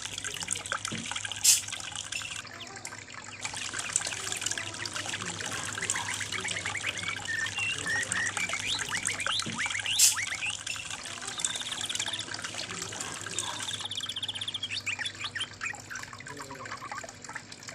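Water trickling and splashing down a small DIY mini waterfall, a steady run of little plinks and gurgles, with two sharp clicks, one about a second and a half in and one about ten seconds in.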